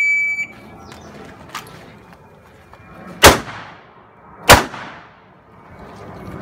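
Electronic shot timer giving a single half-second start beep, then about three seconds in two pistol shots a little over a second apart, each loud and sharp with a ringing tail.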